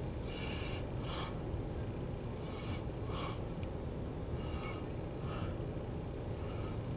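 Faint breathing close to the microphone, short puffs in pairs about every second, over a steady low outdoor rumble.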